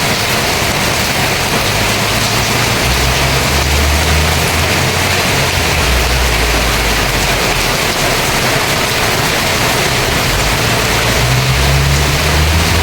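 Heavy rain pouring down in a steady, loud hiss, with wind gusting in low rumbles that come and go.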